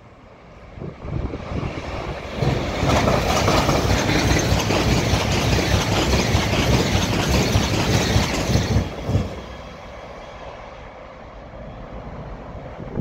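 LNER express passenger train passing through the station at speed: a rush of wheels on rail and air that builds over the first couple of seconds, stays loud for about six seconds as the coaches go by, and falls away suddenly as the last coach clears.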